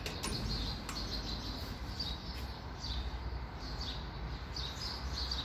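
Small birds chirping, a run of short high chirps spread irregularly over the whole stretch, over a steady low rumble. A couple of light clicks come in the first second.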